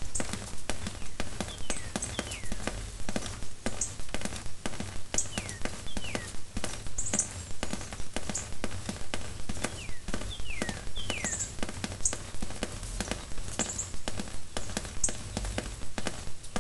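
Rain falling, with many irregular drops tapping close to the microphone over a low rumble. A few short, high calls falling in pitch come through three times.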